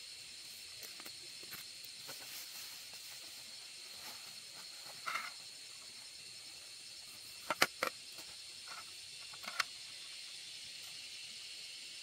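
Steady high-pitched drone of forest insects, with a few sharp clicks or taps; the loudest clicks come as a quick run of three about two-thirds of the way through.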